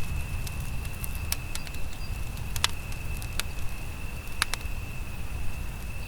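Wood campfire burning, with sharp crackles and pops every second or so over a low rumble. A steady high thin tone runs underneath throughout.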